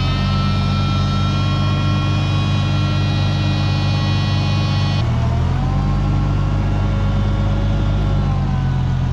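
Oliver 880 tractor's Zenith-carbureted six-cylinder gas engine running at a raised, steady speed, then throttled back to a lower speed about five seconds in, settling there.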